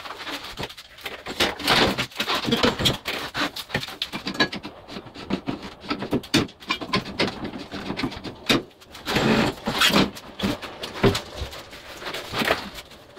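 Irregular knocks, rattles and scuffs of a 50cc mini chopper being pushed up a ramp onto a metal motorcycle lift and settled into place; the engine is not running.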